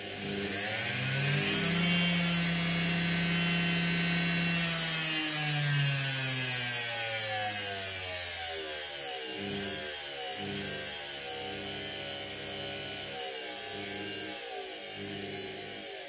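Washing machine brushed motor driven by a US-52 speed controller, spinning up with a rising whine and holding at high speed for a few seconds. About five seconds in it slows with a falling pitch as the speed knob is turned down, then runs at a lower speed, wavering slightly.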